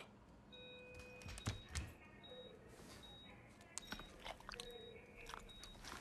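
Bedside hospital patient monitor beeping softly and evenly, a little faster than once a second, like a heartbeat monitor. A couple of soft knocks about a second and a half in, with faint held tones underneath.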